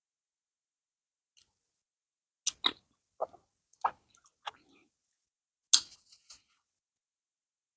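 Close-up eating sounds of pounded yam with banga soup being chewed: a scattered run of short, wet mouth clicks and smacks, with the loudest smack a little before the end.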